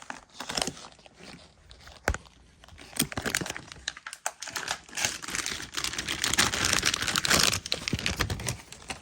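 Plastic packaging crinkling and rustling as a vacuum-sealed bag holding a cable is handled and opened, with scattered sharp clicks and a strong click about two seconds in, and the busiest rustling in the second half.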